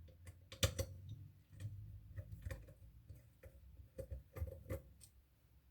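Irregular light clicks and taps of hands and a tool working on a desktop computer's graphics card, spaced unevenly.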